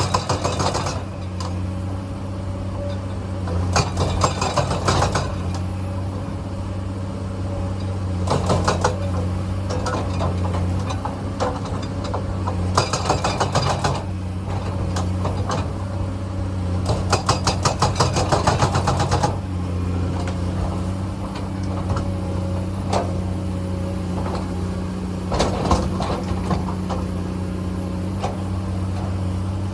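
Komatsu hydraulic excavator's diesel engine running steadily, with bursts of rapid clattering every few seconds, several times over.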